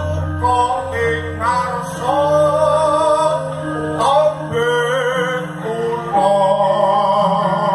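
A Javanese gamelan ensemble playing, with steady, sustained low tones, while a singer holds long, wavering vocal notes over it.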